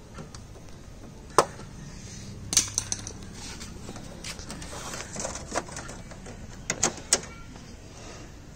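Scattered plastic clicks and knocks from handling the panel and air filters of a Panasonic split AC indoor unit. A sharp knock comes about a second and a half in, a quick cluster of clicks follows a second later, and two more come near the end.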